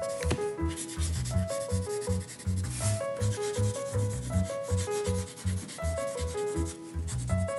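Graphite pencil held sideways shading on paper: quick repeated scratchy strokes. Under it runs background music, a melody of short notes over a steady bass beat.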